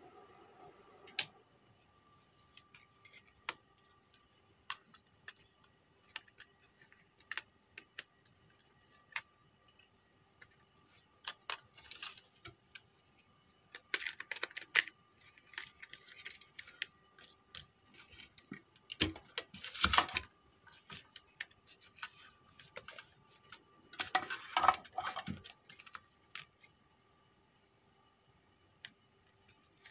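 Scattered clicks, taps and short clattering scrapes of a car stereo being taken apart by hand, as plastic front-panel parts, the metal casing and a screwdriver are handled, with several louder bursts of clatter. A faint steady hum lies underneath.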